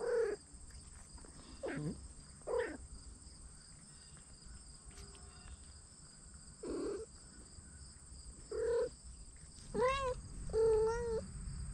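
Domestic cats meowing: about seven short meows scattered through, the last two near the end longer and wavering.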